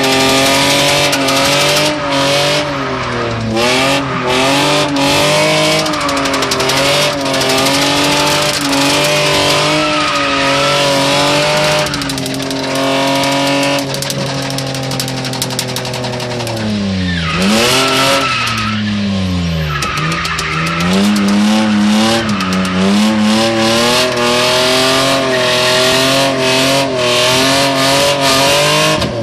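BMW 328i straight-six engine held at high revs through a drift, its pitch wavering up and down, with tyres squealing. About two-thirds of the way through, the revs fall steeply twice and climb again.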